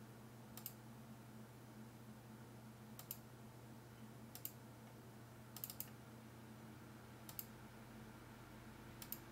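Computer mouse clicking: about seven sharp, faint clicks at irregular intervals, some in quick pairs, over a faint steady low hum.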